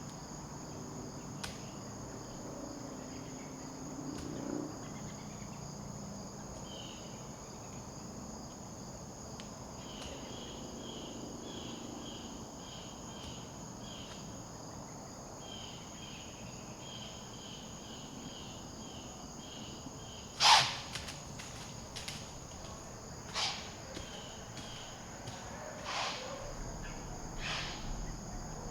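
Evening chorus of crickets and other insects, a steady high trill, with a run of rhythmic chirps in the middle. Past the middle come four sharp snaps or knocks, the first the loudest.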